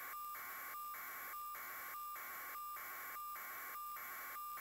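Steady electronic hiss with a faint high tone, broken by short, perfectly regular dropouts about three times every two seconds.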